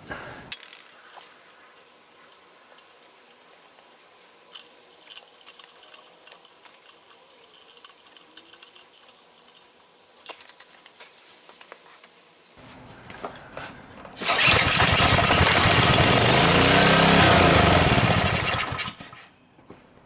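Honda GCV190 lawnmower-type engine, pull-started, fires on brake cleaner sprayed into the cylinder, runs for about four and a half seconds with its speed rising and falling, then dies. This is the sign that it has spark but is not getting fuel from the carburetor. Light clicks of handling come before it.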